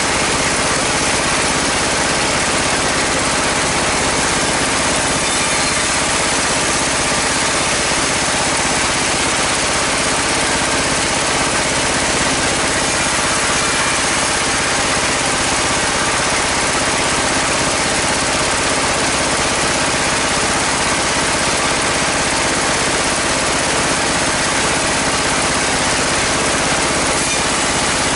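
Sawmill band saw running steadily, driven by its engine, a constant machine drone with no pauses or changes.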